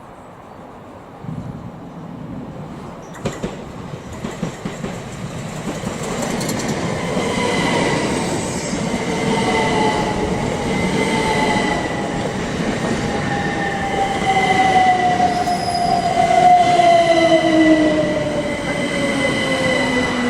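Electric multiple-unit train running into the station: a high steady squeal over the running noise and a motor whine that falls steadily in pitch as the train slows, with wheels clicking over rail joints a few seconds in.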